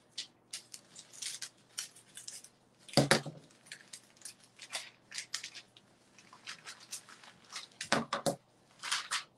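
Scissors snipping paper in short cuts, with paper rustling as it is handled and smoothed. A louder knock sounds about three seconds in, and another near the end.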